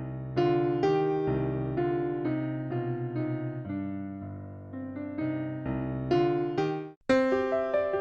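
Background piano music: single notes and chords struck one after another, each fading away. It cuts out abruptly about seven seconds in and starts again at once with a new chord.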